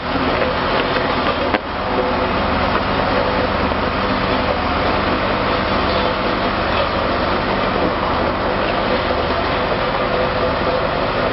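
Scania diesel engine of a Mattsson 261S motor grader running steadily under load as the machine drives past, with the blade scraping and crunching through gravel. The sound breaks off briefly about a second and a half in.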